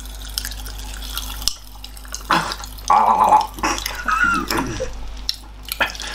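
Popping candy crackling in an open mouth: a dense patter of tiny pops and clicks, dying down after about a second and a half, when a voice-like hum and laughter take over.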